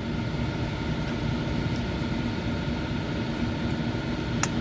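Steady mechanical drone of outdoor machinery, low and even, with faint steady hums over it. A single sharp click comes near the end.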